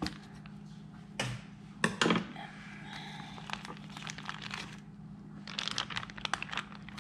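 Plastic vacuum-seal bag crinkling and rustling as it is cut open with scissors and pulled apart by hand, with sharp clicks from the scissors about one and two seconds in. The rustling grows busier near the end.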